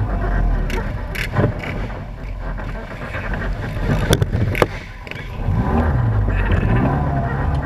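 Off-road vehicle engine running as it drives slowly over rough dirt and grass, its pitch rising and falling with the throttle. A few sharp knocks come about a second in and again about four seconds in.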